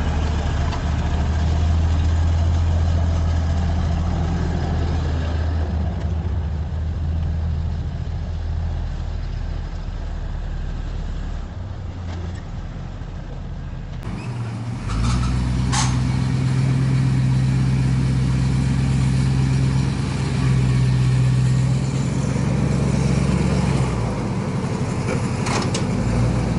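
Square-body pickup truck's engine running at low speed while the truck tows another vehicle on a strap: a steady low hum that eases off partway, then comes back louder and steady, with a couple of short clanks in the second half.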